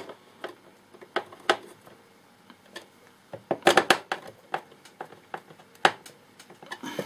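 Scattered light clicks and taps, a few close together about halfway through, from handling a plastic project box while pushing control knobs onto its potentiometer shafts.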